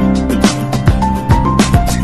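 Background music with a steady drum beat and plucked guitar.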